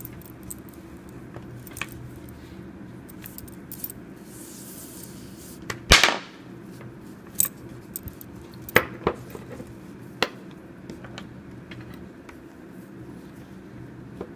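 Handling noise from weaving paracord through a collar with a metal buckle and fid: scattered small clicks and taps over a steady low hum. A short high hiss comes about four seconds in, followed by a sharp knock about six seconds in.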